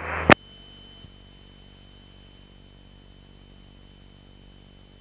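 The tail end of an air traffic control radio transmission cuts off with a click just after the start. After that comes the faint steady hiss and low hum of an aircraft intercom audio feed, with a thin high whine running under it.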